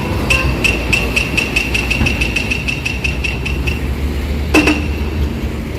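A vehicle engine's steady low rumble under a rapid run of short, high-pitched beeps, about six a second, that stop after about three and a half seconds. A single sharp, brief sound with a low tone comes near the end.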